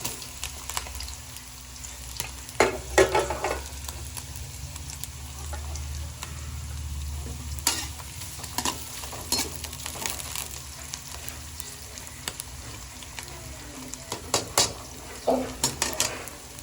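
Food frying in hot oil in a pan, sizzling steadily, while a cooking utensil stirs and scrapes against the pan in short strokes, most strongly about three seconds in and again near the end.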